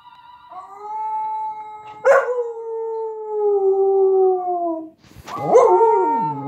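A Samoyed howling: one long, slightly falling howl, then several overlapping howls gliding up and down in pitch near the end, as she howls along with a laptop playing a recording of her own howl. A short sharp knock comes about two seconds in.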